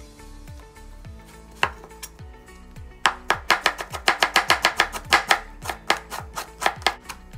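Kitchen knife chopping on a cutting board: a few separate strokes, then fast, even chopping at about five strokes a second from about three seconds in.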